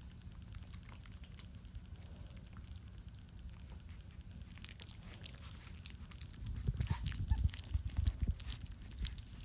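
Close-up rustling and small soft clicks of a Rottweiler puppy nuzzling against its mother's face, over a steady low rumble. About two-thirds of the way through come a couple of seconds of louder low bumps and rumbling as the phone is moved.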